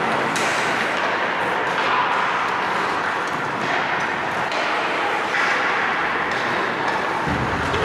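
Ice hockey rink during play: a steady wash of rink noise with scattered sharp clacks, as of sticks, puck and skates on the ice, and a low thud near the end.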